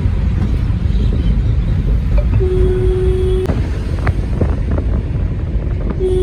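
Steady low rumble with wind buffeting the microphone, broken by a short steady tone a little after two seconds and again just before the end.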